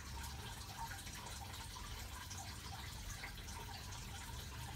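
Water dripping and trickling lightly and steadily over a low hum, after the tortoise enclosure has been rained on.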